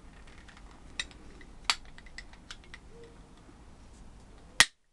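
Hand pop rivet tool squeezed through several strokes, with small metallic clicks as its jaws grip and pull the rivet's steel pin. About four and a half seconds in comes one sharp snap, the loudest sound, as the hardened steel pin breaks off and the aluminium rivet is set.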